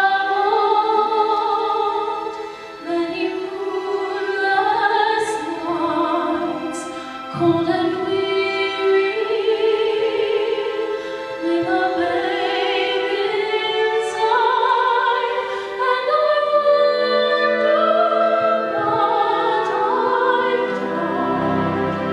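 A teenage girl singing a solo in a classical style with vibrato, accompanied by a symphony orchestra. The orchestra swells in the low range near the end.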